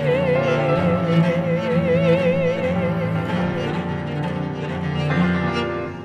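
Bowed cello playing sustained low chords under a long high note held with wide vibrato, which fades out about three and a half seconds in; a new chord sounds about five seconds in.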